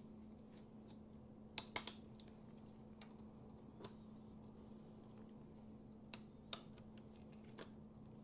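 Small sharp clicks and taps of hands handling laptop parts and memory modules: a quick cluster of three or four just under two seconds in, then a few single clicks later, over a steady low hum.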